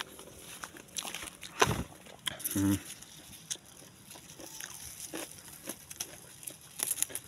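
Cucumber vines and leaves rustling and crackling as a hand pushes in among them to pick a cucumber, with scattered small clicks and one sharper knock about a second and a half in. A brief low grunt-like sound follows about a second later.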